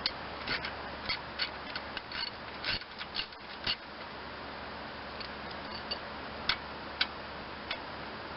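Metal hand tools clicking on the engine's shroud bolts. There is a quick run of about ten sharp clicks in the first four seconds, then a few scattered ones.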